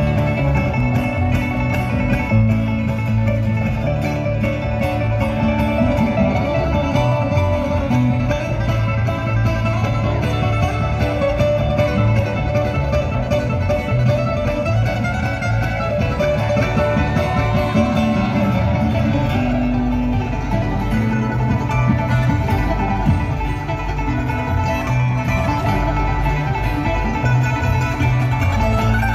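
Live bluegrass band playing an instrumental passage: banjo and acoustic guitars picking over an upright bass.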